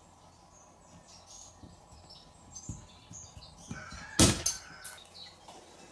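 A plastic syringe scraping and squeaking faintly as it is worked with a small hand tool, with a sharp knock about four seconds in.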